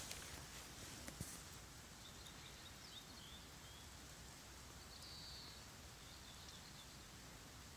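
Near silence: quiet outdoor ambience with a few faint, short, high chirps of a distant bird and a couple of small ticks about a second in.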